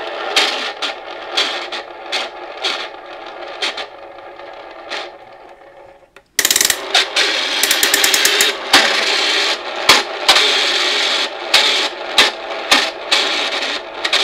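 Plastic gear train and escapement of a build-your-own kit clock clicking and rattling as it runs without its pendulum, with irregular clicks about two or three a second. The sound drops away briefly about six seconds in, then comes back louder with a fast run of clicks shortly after.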